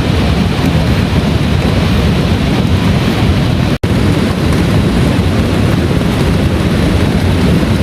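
Heavy rain pouring steadily, with a strong low rumble underneath. The sound cuts out for an instant about four seconds in.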